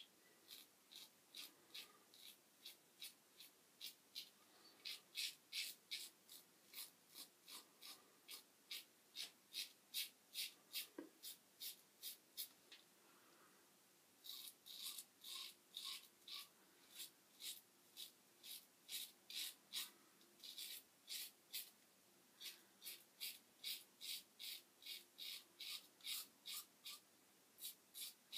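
Merkur 37C slant safety razor with a Treet carbon steel blade scraping through stubble in short strokes, about two a second. The strokes pause briefly about thirteen seconds in and again about twenty-one seconds in.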